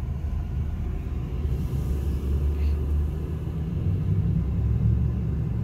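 Low, steady rumble of a car being driven slowly, growing a little louder about four seconds in.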